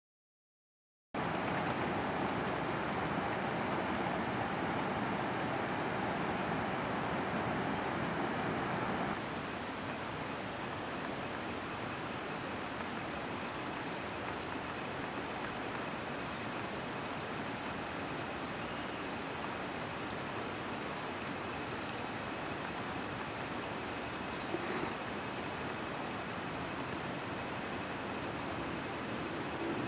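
A chorus of insects chirring high and shrill, pulsing about four times a second at first, then settling into a steadier trill after about nine seconds. Under it runs a constant rushing background noise, with a brief knock near the end.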